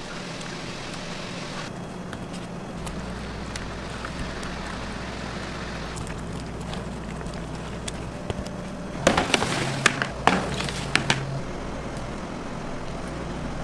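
Steady machinery hum in a commercial bakery. About nine seconds in comes a burst of sharp clatters and knocks, lasting about two seconds.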